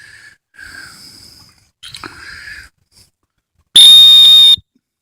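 A dog-training whistle blown once: a loud, shrill blast lasting under a second, about four seconds in. Before it come a few faint breathy puffs.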